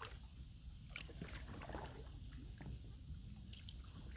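Kayak paddle strokes: soft, irregular splashes of the blade dipping into the water every half second or so, the quick strokes of paddling upstream against the current.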